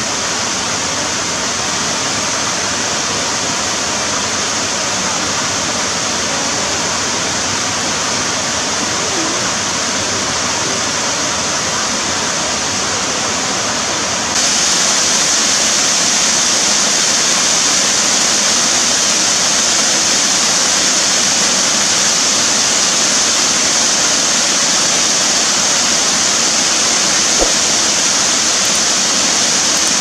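Waterfall cascading over rock tiers into pools: a steady rush of falling water. About halfway through it gets louder and hissier as a closer cascade comes in.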